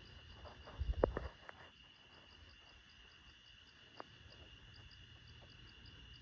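Steady chorus of crickets and other insects: a continuous high drone with a regular chirp repeating a few times a second above it. About a second in, a brief cluster of cracks and thumps, and a single sharp click about four seconds in.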